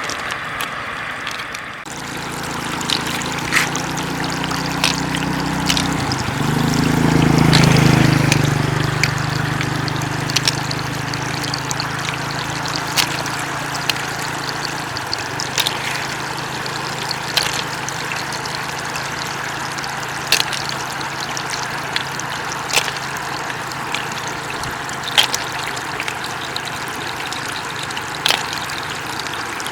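Floodwater flowing and trickling steadily across a road. A steady low hum comes in about two seconds in and swells to its loudest around seven to eight seconds, and sharp ticks recur every couple of seconds.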